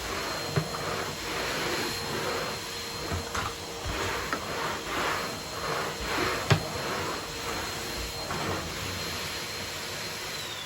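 Numatic TEM390a Tradeline vacuum extractor's single-fan motor running with a steady whine and airflow hiss, quiet for its size, with a few knocks. Near the end it is switched off and the whine falls away as the motor spins down.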